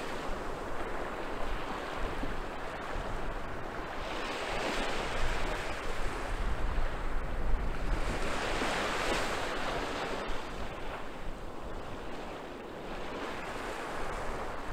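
Small waves breaking and washing up a sandy beach: a continuous hiss of surf that swells and eases every few seconds.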